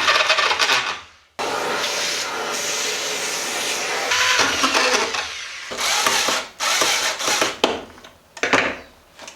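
A power tool running in bursts: a short run that stops about a second in, then a long steady run of about four seconds, then several short bursts that grow shorter toward the end.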